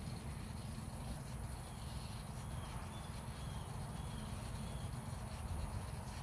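Steady high-pitched drone of insects over a low rumble, with a few faint short chirps in the middle.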